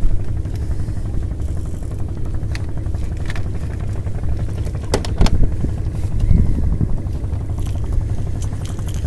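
Boat engine running with a steady low rumble, with a few light clicks about five seconds in.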